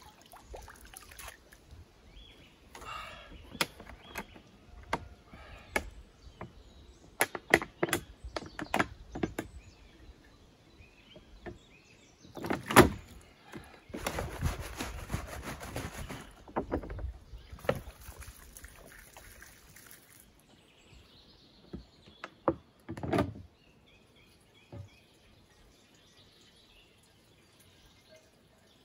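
Water splashing in a small spring pool as hands scoop at it, then a steady rush of water poured out of a large plastic bottle into the pool for a few seconds, twice; after that it goes quiet apart from faint bird chirps while the bottle is held under the surface to fill.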